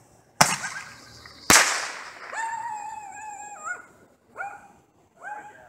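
Two loud firework bangs about a second apart, followed by a high pitched cry held for about a second and a half, then two shorter calls.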